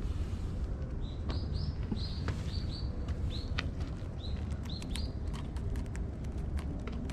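A bird chirping a quick series of about a dozen short, high notes over three or four seconds, over a steady low rumble.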